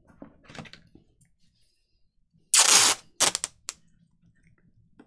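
Sellotape pulled off the roll with one loud half-second rip about two and a half seconds in, followed by a few short crackles as the strip is torn off and handled. Faint paper rustling before.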